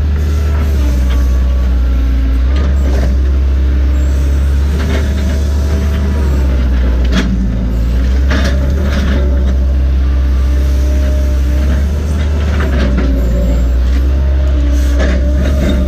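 Heavy machine's diesel engine running steadily under load, heard from inside the operator's cab, with a strong low drone and a few short clanks as the boom works.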